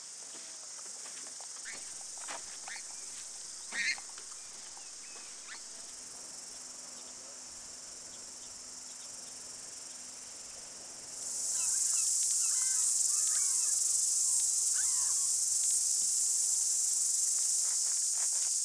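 Cicadas buzzing in a steady high-pitched chorus that swells suddenly louder about eleven seconds in. Short bird calls come in here and there, the loudest about four seconds in.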